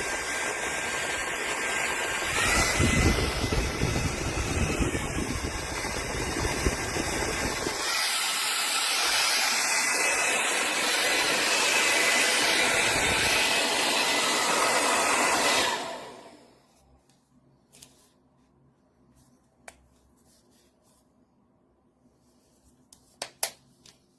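A Revlon 1875W compact hair dryer runs with a loud, steady rush of air and a thin high whine. Its sound shifts a few seconds in and gets thinner at the bottom about a third of the way through. About two-thirds of the way through it switches off and dies away, leaving a few faint clicks.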